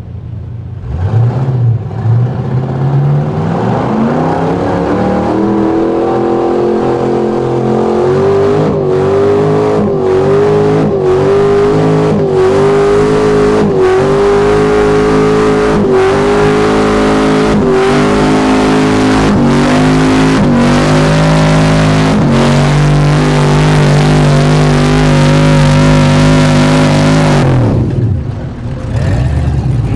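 Gas-class pulling truck's engine revving up and held at high revs while pulling the sled, with brief regular dips in pitch about every second and a half, then shut off near the end.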